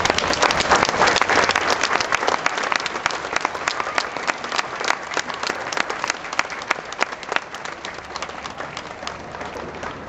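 A small audience applauding, dense clapping that is loudest at the start and thins out to scattered claps toward the end.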